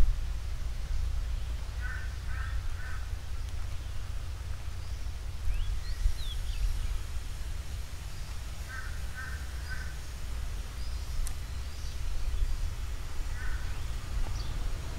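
A bird calling in runs of short calls: three in quick succession, a second run of three several seconds later, and a shorter run near the end, over a steady low rumble.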